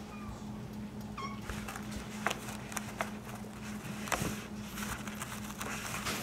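Kittens playing: scattered light taps and scuffs of paws and paper, with a short, high kitten mew about a second in.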